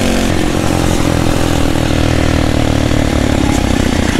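Phatmoto Rover 79cc single-cylinder four-stroke motorized-bicycle engine, governor removed, running steadily and hard under throttle while being ridden.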